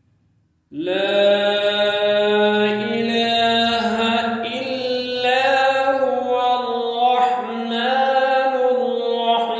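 A single voice reciting the Quran in a melodic, chanted tajweed style, drawing out long held notes that bend gently in pitch. It comes in under a second in, after a brief silence.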